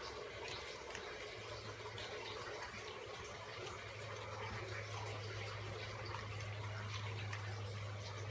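Rough Collie chewing raw fish: irregular wet smacking and clicking of jaws and tongue. A steady low hum runs underneath, strongest in the second half.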